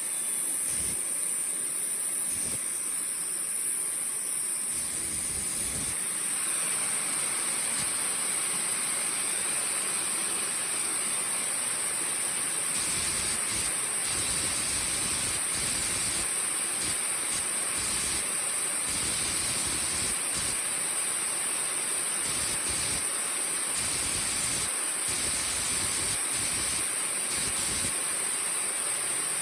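IQ Hammer 90+ model turbojet engine running during a thrust test after servicing: a steady jet rush with a high turbine whine, which climbs a little about six seconds in.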